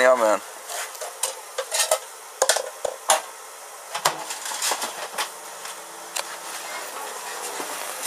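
Scattered clicks and knocks of handling, then about four seconds in a countertop microwave oven is switched on at its control panel and runs with a steady low hum.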